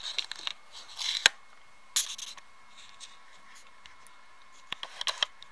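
Curtain being pushed aside from a window: fabric rustling and scraping with sharp clicks, in three short bouts, the last a cluster of clicks near the end.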